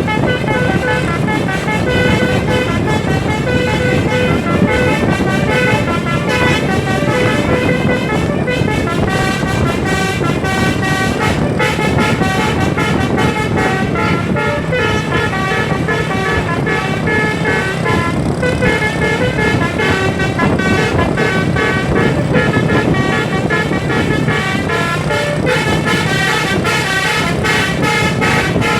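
Multi-tone 'telolet basuri' air horn on a Tunggal Jaya coach, played as one long continuous melody that steps from note to note. The bus engine runs underneath. The horn cuts off at the very end.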